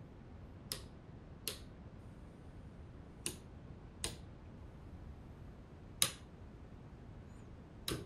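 Bedside wall light switches being pressed by hand: six sharp clicks, a second or two apart, the fifth the loudest.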